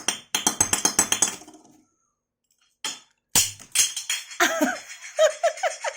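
A noise-making pet toy being shaken, giving quick clinking rattles in two bursts with a short pause between them. From about four and a half seconds in, a string of short squeaky tones rises and falls over the rattling.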